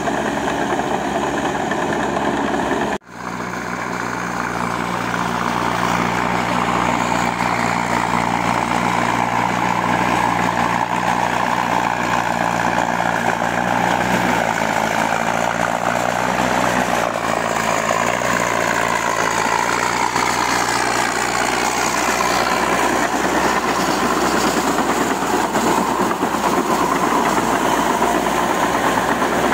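Massey Ferguson tractor's diesel engine running steadily under load while pulling a rotary tiller through a flooded paddy field. The sound cuts out briefly about three seconds in, then resumes.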